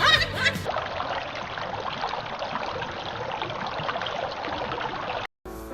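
Steady rushing noise of running water, which breaks off abruptly near the end.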